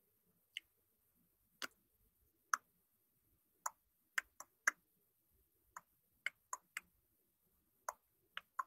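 About fourteen short, sharp clicks at uneven intervals, some single and some in quick runs of two or three.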